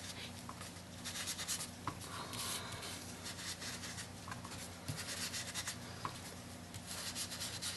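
Stamping sponge rubbed and dabbed over card stock to spread ink: a faint, irregular scratchy rubbing in quick short strokes.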